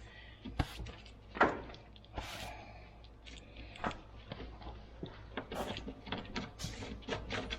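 Hand tools clicking and clinking against metal fasteners and panels, a scatter of short taps and knocks with a brief scraping rustle about two seconds in.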